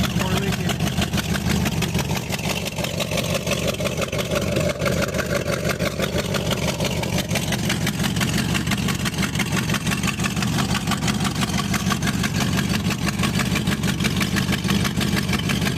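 1995 Ford F-250's V8 engine idling steadily with an even pulse. It is running with the heater core bypassed, its heater hoses spliced together.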